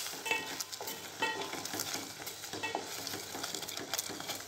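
Wooden spatula stirring and scraping ada (rice flakes) through jaggery syrup in a metal pot, over a steady sizzle of the mixture simmering as it cooks down and thickens. Small scraping ticks and a few brief squeaks come through the sizzle.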